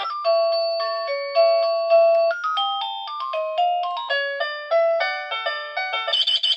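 Plug-in wireless doorbell receiver playing one of its preset melodies: an electronic tune of clean single notes stepping up and down. About six seconds in it switches to a different tune with a warbling, trilling ring.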